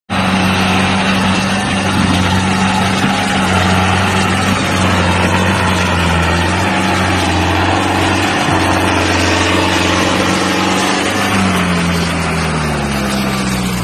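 Tractor diesel engine running loud and steady, climbing in pitch near the end as it revs up.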